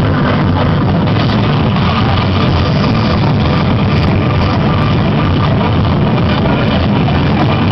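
Car sound system blasting electronic dance music at very high volume, heavy bass and a dense, distorted, compressed sound with no pauses.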